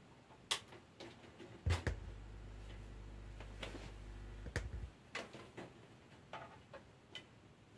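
Scattered clicks of switches or buttons on hi-fi equipment. A loud click a couple of seconds in brings on a low mains hum through the amplifier, which stops with another click about three seconds later.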